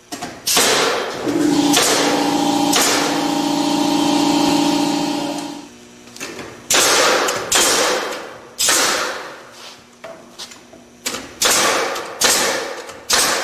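Pneumatic 16-penny nail gun firing nails into pine framing: two quick groups of three sharp shots in the second half, three nails per joint. Before them, a steady motor hum lasts about four seconds.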